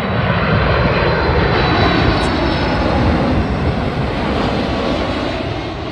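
Jet airliner's engines passing close by: a loud rumble with a thin high whine, swelling to a peak a couple of seconds in and then fading away.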